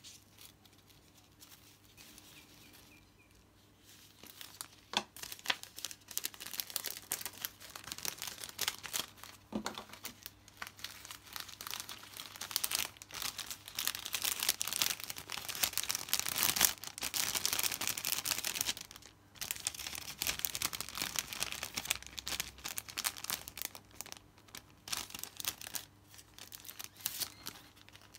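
Clear plastic cellophane bag crinkling as a card of hair bows is slid into it and the bag is handled. Quiet for the first few seconds, then dense crinkling, heaviest in the middle.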